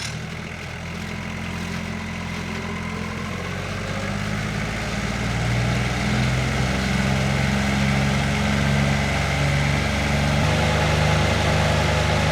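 Frost fan running, its engine and big propeller making a steady low drone that grows louder over the first half and then holds. The tone shifts slightly near the end.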